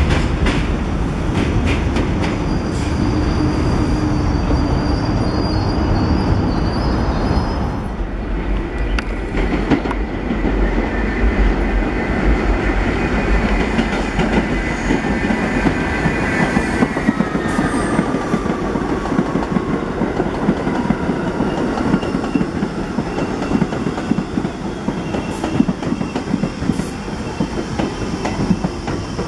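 New York City subway 1 train of R62A cars running into a station, rumbling and clattering over the rails; after a break about eight seconds in, a second train pulls out of a tunnel into a station with its wheels squealing in high, wavering tones that fall off, over the rumble and clatter.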